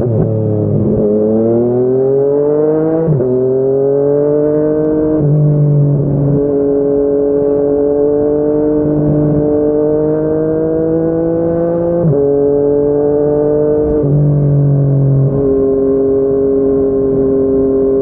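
Yamaha MT-09's inline three-cylinder engine through a Yoshimura R55 slip-on exhaust, climbing in revs and dropping sharply on two upshifts in the first five seconds. It then cruises at a fairly steady engine speed with small rises and dips.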